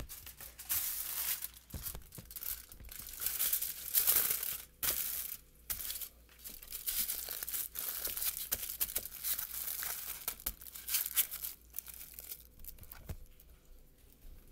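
Aluminium foil crinkling as it is folded and crumpled by hand, in irregular bursts with short pauses, dying down in the last couple of seconds.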